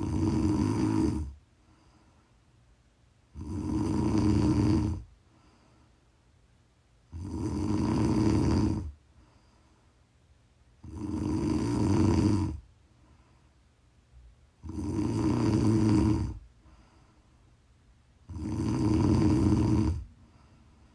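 A woman snoring in deep sleep: six loud rattling snores, each about one and a half to two seconds long, coming evenly about every four seconds with quiet breathing between.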